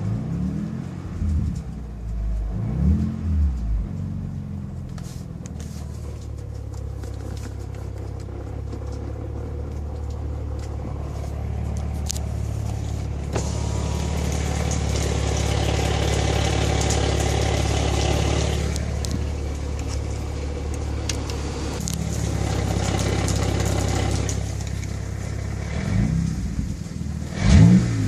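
Car with a six-speed manual transmission running, blipped up and down in quick revs near the start and again near the end and holding steady in between, louder for a stretch in the middle. Faint clicks come through over the engine: the rattle noises the owner is documenting.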